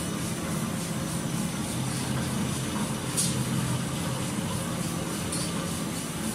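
Interfold napkin and paper towel converting machine running, a steady mechanical hum and hiss of rollers and drives, with one brief sharp tick about three seconds in.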